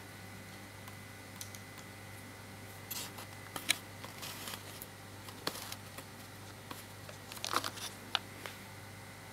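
Scattered small clicks and handling noises from a Sony NEX-6 mirrorless camera fitted with a Cactus V5 wireless trigger being handled, with a sharp click about three and a half seconds in and a cluster of clicks near the end, over a steady low hum.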